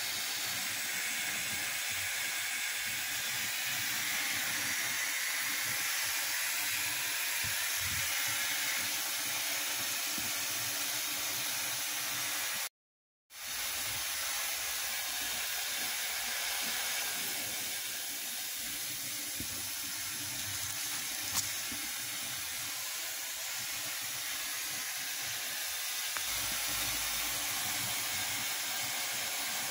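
A steady hiss with a brief cut-out about thirteen seconds in.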